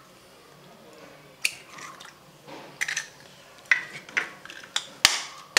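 Eggs being cracked with a kitchen knife over a saucepan: a series of sharp taps of the blade on the shells, the loudest about five seconds in, with softer crackling as the shells are pulled apart.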